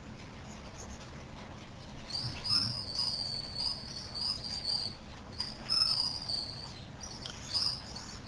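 High-pitched insect trill, coming in three stretches of one to three seconds each, starting about two seconds in, over a faint steady hiss.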